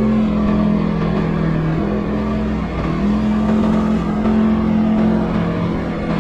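CFMoto ATV engine running steadily under way, its pitch dipping slightly and picking up again about halfway through.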